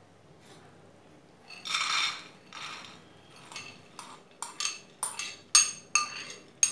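Soaked whole green moong dal spilling from a glass bowl into a pressure cooker: a short rustling pour about two seconds in, then a run of about eight sharp clinks as the glass bowl knocks against the cooker while the last lentils are tipped out.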